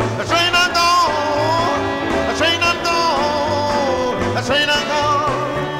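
Rhythm-and-blues record: a blues harmonica wails in three phrases of bent, sliding notes over the band's steady bass line and beat, played from an original 1961 vinyl 45.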